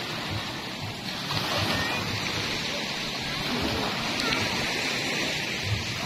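Small waves breaking and washing up over a sandy shore: a steady rush and hiss of surf and foam that swells a little from about a second in.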